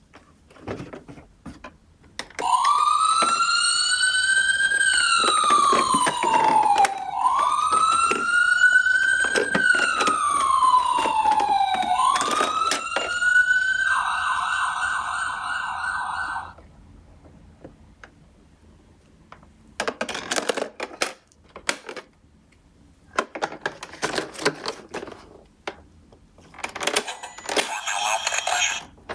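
Toy ambulance minicar's electronic siren sounding a slow wail, rising and falling about every five seconds, then switching to a fast warble for a couple of seconds and cutting off. Bursts of clicking and rattling follow.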